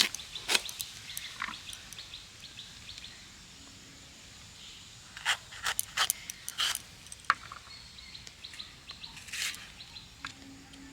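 Vegetables (capsicum, tomato, onion) being cut with a blade: a series of short, sharp, crisp cuts, a few about a second in and a quicker run of them around six seconds in. Birds chirp faintly in the background.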